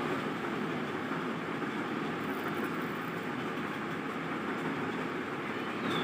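Steady background noise without distinct events.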